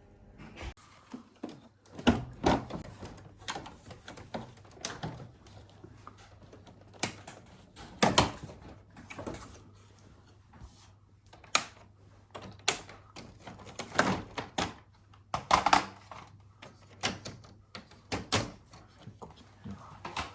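Irregular clicks, knocks and clatters of hard plastic parts being handled and taken apart on a self-cleaning air conditioner, some sharp and loud, over a faint steady low hum.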